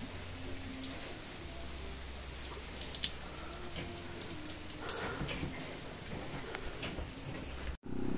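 Steady patter of rain with scattered sharp drops ticking on a corrugated metal roof. It cuts off briefly near the end.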